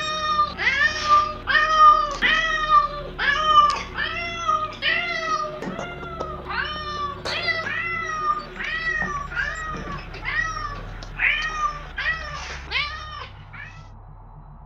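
A cat meowing in a fast, even run of short meows, about two a second, that stops near the end.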